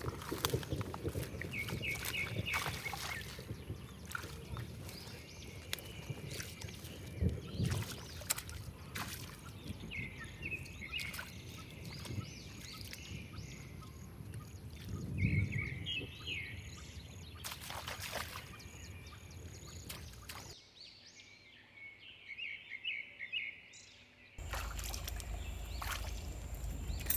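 Shallow river water splashing and sloshing as a man wades and jabs a bamboo fishing spear among water hyacinth, with several sharp knocks. A bird calls in short chirping phrases every few seconds. Near the end the background changes abruptly to a steady low rumble.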